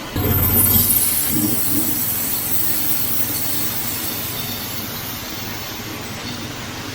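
Norwood HD36 portable band sawmill sawing a spruce log: the engine runs under load while the band blade cuts through the wood. It starts suddenly with a high squeal for about the first second, then settles into a steady noise that eases slowly.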